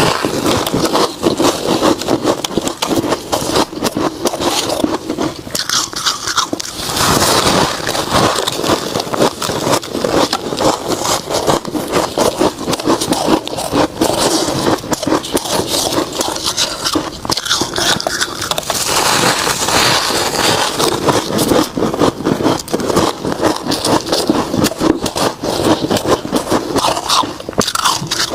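A person biting and chewing crispy freezer frost ice close to the microphone: a dense, continuous run of small crunches and crackles.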